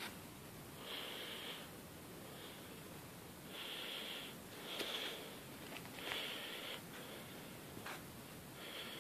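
Breathing through the nose close to the microphone: short, noisy breaths every second or so, with a couple of faint clicks.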